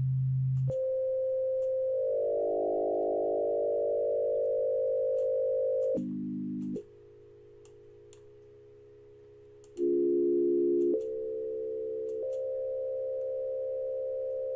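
FM synthesizer tones from a simple MaxMSP patch: a sine-wave carrier frequency-modulated by a second sine oscillator, giving steady buzzy notes made of several pitches at once. The note, modulator rate and modulation depth change abruptly several times, and the sound drops much quieter for a few seconds in the middle. Faint mouse clicks run throughout.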